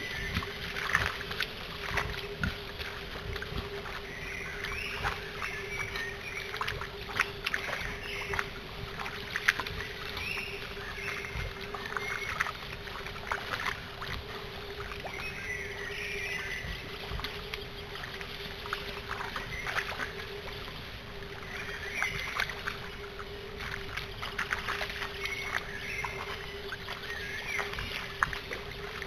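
Young wild boar wading and rooting in a shallow muddy pool: irregular splashing and sloshing of water, over a steady hum.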